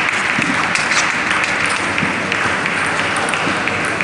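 Steady applause-like crowd noise in a large sports hall, with scattered sharp clicks of table tennis balls.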